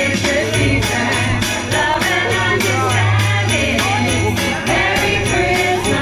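Singers performing a Christmas carol with musical backing and a steady beat.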